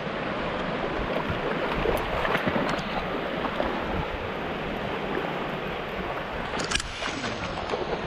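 Small waves washing in over shallow sand, a steady rushing hiss of surf, with light splashing from a dog moving through the shallows and one sharp splash or knock near the end.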